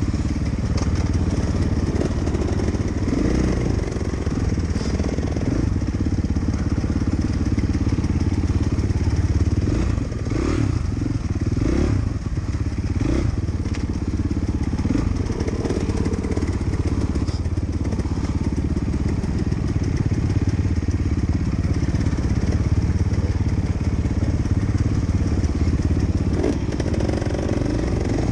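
Dirt bike engine running steadily as the bike is ridden along a rough trail, heard from the rider's helmet. A few knocks from the bike come partway through.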